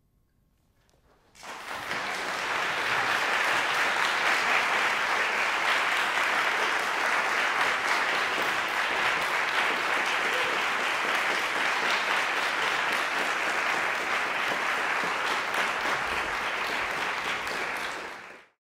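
Audience applauding, breaking out about a second in after near silence and holding steady, then cutting off abruptly near the end.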